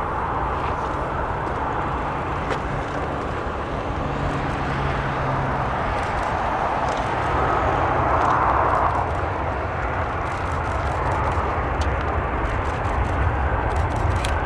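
Aircraft engine noise: a steady rush with a faint low hum, swelling briefly about eight seconds in.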